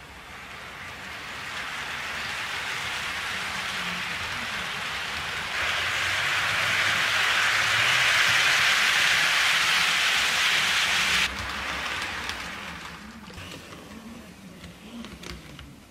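HO scale model freight cars rolling on sectional track: a steady hiss of small metal wheels on the rails. It grows through the first seconds, steps up louder about a third of the way in, then drops suddenly past the middle and fades toward the end.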